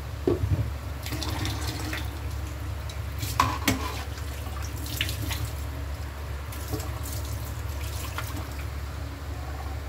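Water at a rolling boil in a pot, bubbling and crackling over a steady low hum, with a few sharper clicks about half a second and three and a half seconds in.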